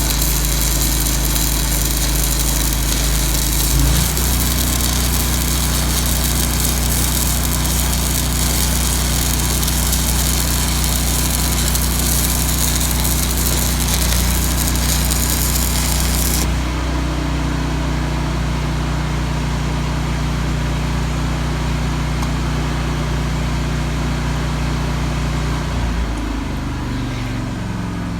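Miller Trailblazer 325 engine-driven welder running under load while a 3/16 in 5P+ (E6010) stick electrode burns at 180 amps. The arc crackles and hisses until about 16 seconds in, when it goes out. The engine hum shifts pitch about 4 seconds in and again as the arc stops, then falls back near the end as the load comes off.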